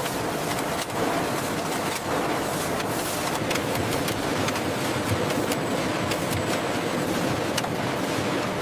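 Factory conveyor machinery running with a steady, even noise, with light irregular clicks.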